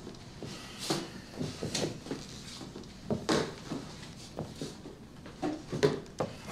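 A series of soft, scattered knocks and clicks, a handful spread over several seconds, like objects being handled and someone shifting at a table.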